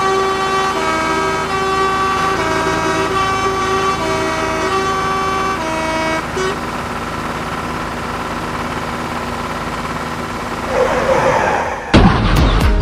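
A horn-like tune, the kind of melody a musical truck horn plays, with notes changing about twice a second for the first six seconds. It gives way to a steadier, noisier engine-like drone. Near the end a loud electronic dance beat cuts in.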